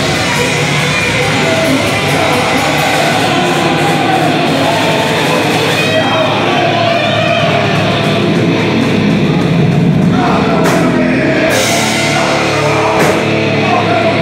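Live heavy metal band playing loud: distorted electric guitars, a drum kit and a singer's vocals over it.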